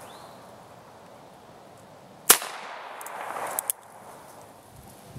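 One shot from a Ruger New Model Blackhawk .45 Colt single-action revolver about two seconds in, with a trailing echo. About a second and a half later come a few light clicks as the hammer is cocked for the next shot.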